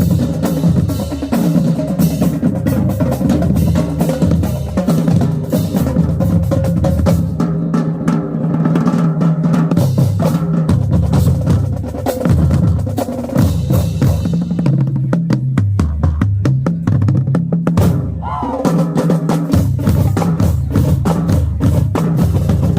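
Marching band drumline playing loudly: rapid snare strokes over tuned bass drums that step through different pitches in a pattern. The low drums thin out for a few seconds past the middle, then come back in.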